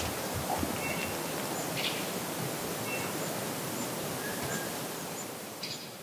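Quiet winter-forest ambience: a steady even hiss with a few faint, brief small-bird chirps scattered through it, fading out near the end.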